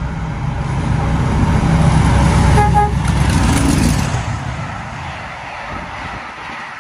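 GBRF-liveried Class 50 diesel locomotive, with its English Electric V16 engine, passing at speed: a deep engine rumble builds to a peak over the first four seconds, with a brief horn note partway through. The rumble then drops away to a quieter, steady wheel noise as the coaches go by.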